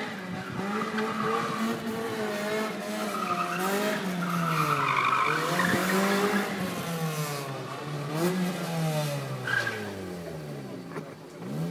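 Small hatchback's engine revving up and falling back again and again as it is driven hard through tight turns, with tyres squealing on the tarmac in the middle of the run.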